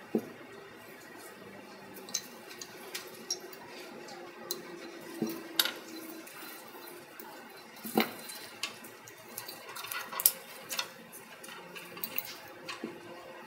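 Irregular light clicks and taps as a new tip seal is pressed by gloved hands and a wooden dowel into the spiral groove of a dry scroll pump's outboard housing, with sharper clicks about eight and ten seconds in.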